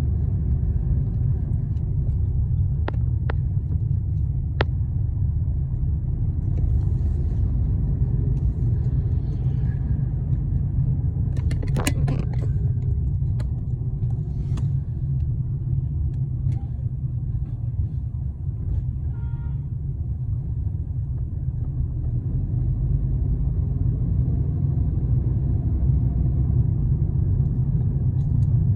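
Steady low road-and-engine rumble inside a moving car's cabin, with a few sharp clicks a few seconds in and a brief louder rattle about twelve seconds in.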